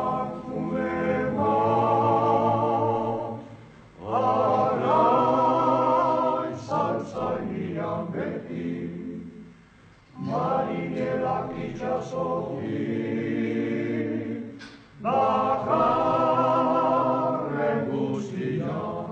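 Group of men singing a Basque song a cappella, unaccompanied voices together, in phrases of a few seconds with short breaks between them.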